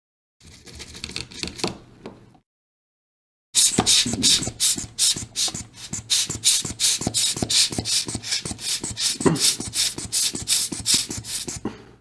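Brisk back-and-forth scrubbing of a brush on a circuit board, cleaning it after soldering. A couple of short, fainter rubs come first; then, a few seconds in, a steady run of loud strokes at about four or five a second.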